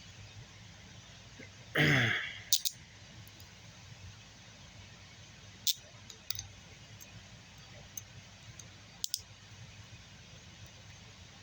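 Steel handcuffs being handled and picked with a hook tool: scattered sharp metallic clicks a few seconds apart, with a brief louder rasp about two seconds in.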